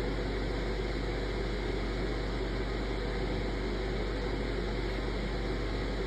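Steady background noise with a low hum underneath, even throughout, with no sudden sounds.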